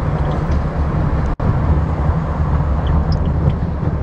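Steady city traffic noise: a loud, dense low rumble of vehicles, broken by a sudden momentary dropout about a second and a half in.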